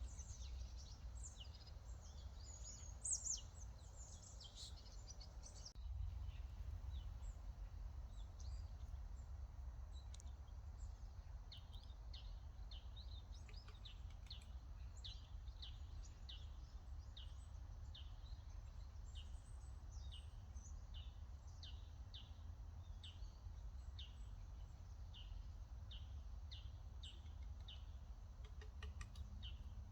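Small birds chirping: a busy tangle of calls in the first few seconds, then one bird repeating short, quick chirps at a steady pace, over a faint, steady low rumble.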